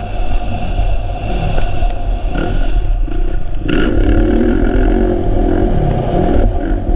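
Kawasaki KX450F's single-cylinder four-stroke engine under load on a motocross track, briefly off the throttle at the start, then revving up and down in rising and falling sweeps.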